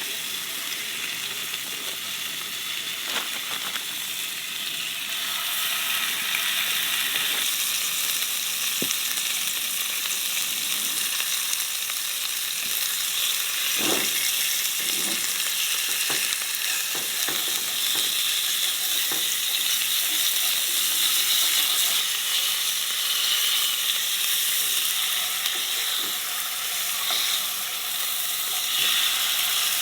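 Pieces of olive-oil-marinated steak frying in a hot pan, a steady sizzle that grows louder about six seconds in. A few light knocks from stirring, the clearest about fourteen seconds in.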